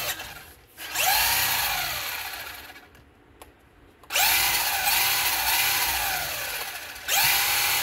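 A 1/16-scale RC truggy's brushed electric motor and drivetrain whirring as the wheels spin up with the car on a stand. It goes three times: each burst jumps up quickly with a briefly rising whine, then winds down over two to three seconds.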